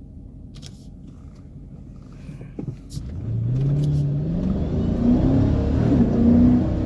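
Dodge R/T's V8 engine heard from inside the car: a low steady rumble at light throttle, then hard acceleration from about three seconds in, the engine note climbing in pitch and getting much louder.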